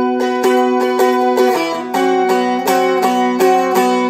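Seagull Merlin, a four-string dulcimer-style instrument, being strummed in repeated chord strokes, about three a second, with its strings ringing on between strokes. The chord changes about halfway through.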